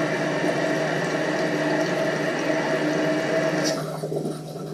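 Toilet tank refilling through its fill valve: a steady hiss of running water with a steady tone in it, which cuts off suddenly after about three and a half seconds as the valve shuts off with the tank full.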